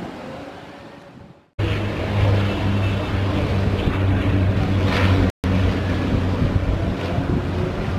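Twin-engine turboprop airliner on landing approach: a steady low propeller drone under a haze of wind noise, starting after a brief dropout about a second and a half in and broken by another very short dropout near the middle.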